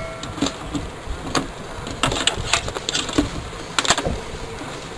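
Irregular clicks and light knocks from a DT-9205A digital multimeter being handled: set down on the scale's plastic case and its rotary range selector turned, with the test probes in hand.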